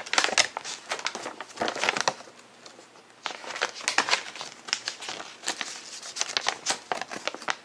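Paper rustling as the pages of a small printed booklet are handled and leafed through: a run of crisp crinkles and flicks, with a brief lull about a third of the way in.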